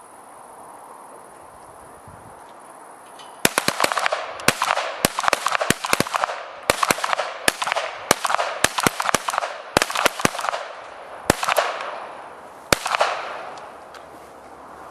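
Pistol shots from four shooters firing a timed series together: about twenty sharp cracks, overlapping and irregularly spaced, each with a short echo. They begin about three and a half seconds in and stop near the end.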